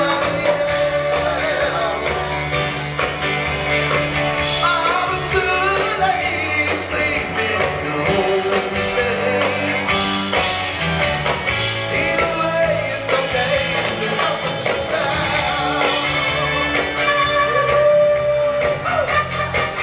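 Live rock band playing through a PA system: a lead vocal sung over electric guitar, bass and drums.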